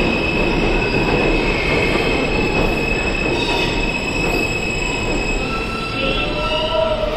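R160A subway train pulling into the station and slowing along the platform: steady rumble of the cars with a high, steady wheel squeal. Near the end the squeal fades and lower tones come in as the train slows.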